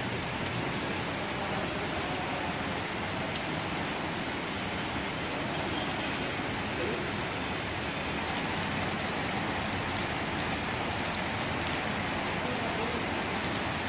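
Steady rain falling and splashing on a wet paved road, an even, unbroken hiss.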